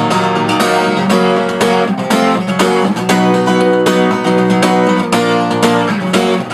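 Acoustic guitar strummed in a steady rhythm of quick chord strokes. It is a break (fill) strum pattern played from a C chord in place of the gallop strum, switching back to the gallop on a B chord.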